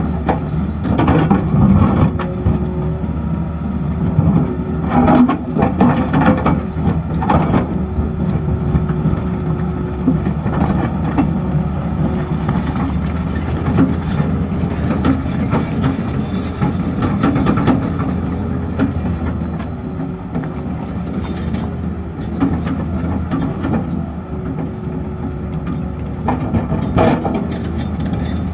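Tata Hitachi excavator's diesel engine running steadily at working revs, with a few sharp knocks now and then near the start, in the middle and near the end.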